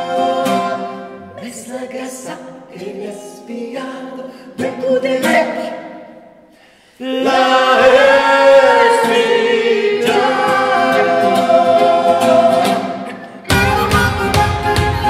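Several voices singing a traditional folk song in close harmony with no accompaniment. They fade almost away about six seconds in, then come back in full. Near the end, violin, flute and a plucked mandolin-like instrument strike up together over a quick, sharp percussive beat.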